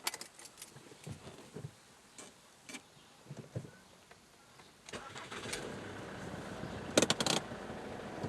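Ford Mondeo Mk3's 2.0 TDCi diesel engine starting about five seconds in, after some scattered clicks and knocks, then running steadily. A quick cluster of loud clicks comes about two seconds after it starts.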